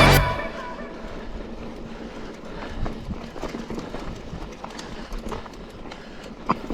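Music cuts off right at the start, leaving the sound of a Giant XTC Advanced hardtail mountain bike being ridden over rough trail: steady tyre and trail noise with frequent irregular knocks and rattles from the bike.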